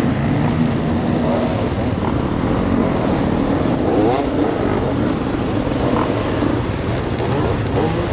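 A crowd of enduro motorcycles, the rider's own KTM 250 EXC two-stroke among them, running close together in a steady loud din, with short revs rising and falling about halfway through and near the end.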